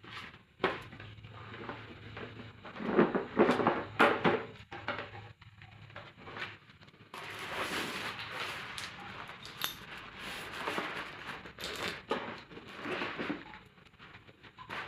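Metal clinks and knocks from a hydraulic crimping tool and its steel parts being handled and set up, with several sharp knocks about three to four seconds in, then steadier handling noise with small clicks.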